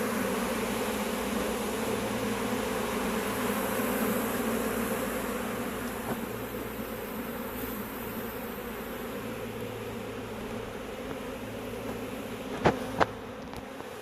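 Honeybee colony buzzing steadily as many bees fly around. Near the end there are two sharp clicks close together.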